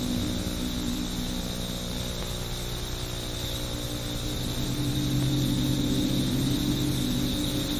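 A steady low hum under an even hiss, with no music or voice; it grows slightly louder about halfway through.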